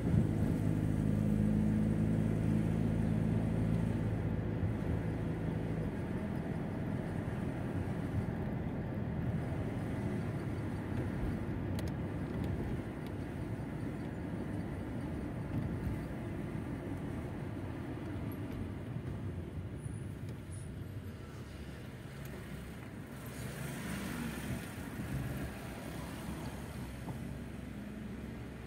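Mercedes-Benz car driving slowly through town streets, heard from inside: a steady engine hum for the first few seconds, fading into the rumble of tyres on the road. Near the end there is a brief louder rush.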